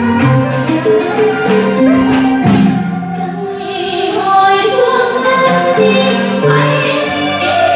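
Music: a Vietnamese song's instrumental accompaniment with singing voices and a light percussion beat, the sound growing fuller about halfway through.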